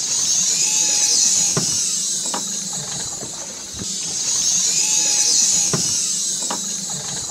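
Loud, high-pitched mechanical whirring with a few sharp clicks. The same stretch of sound repeats after about four seconds, like a loop.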